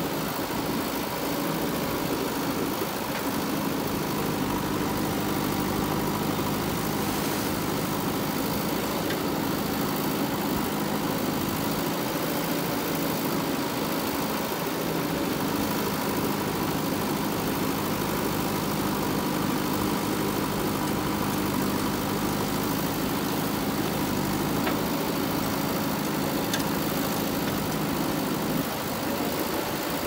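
JCB 3DX Super backhoe loader's diesel engine running steadily as the backhoe arm digs. Its note dips and recovers a few times under the hydraulic load, with a steady higher whine above it.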